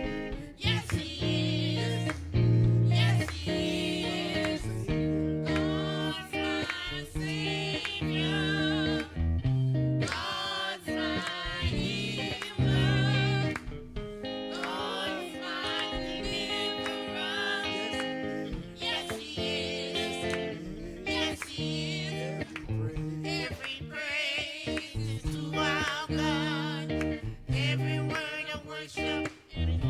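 A song with a solo voice singing with heavy vibrato over guitar and bass accompaniment.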